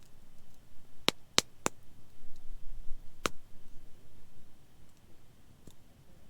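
Burning wood in a campfire crackling: three sharp pops in quick succession about a second in, another near the middle, and fainter ticks between.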